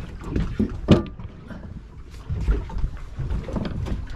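Wind rumbling on the microphone and water sloshing against the hull of a small boat on open water, with a sharp knock about a second in.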